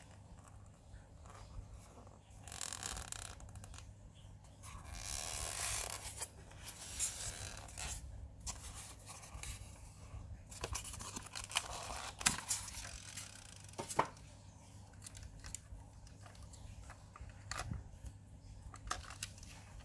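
Unboxing handling noise: the white foam packing tray and the diecast model car scraping and rubbing against each other as the model is worked about and lifted out, in two longer stretches early on, then a string of sharp clicks and light knocks as the plastic-and-metal model is handled and turned over.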